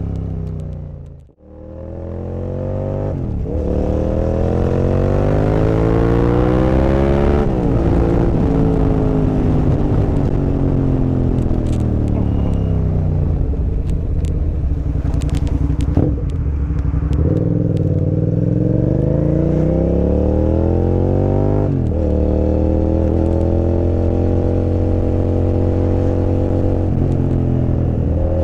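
Suzuki SV650 V-twin with a full aftermarket exhaust, heard from the pillion seat, pulling hard with its pitch climbing and dropping sharply at each upshift, easing off into a long falling run, then accelerating again and settling to a steady cruise. The sound drops out almost completely for a moment about a second in.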